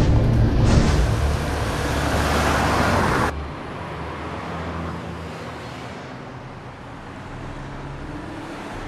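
Car driving, a loud low engine rumble under a rising rush of road noise that cuts off suddenly about three seconds in. After that, a much quieter steady background hum.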